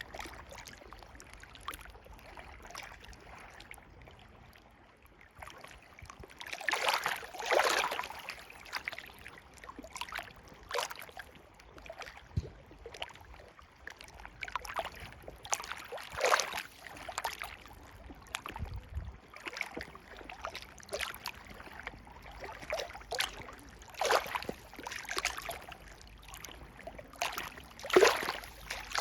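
River water flowing over a bed, with irregular gurgles and splashes. It is quieter for the first few seconds, then louder splashes come and go every few seconds.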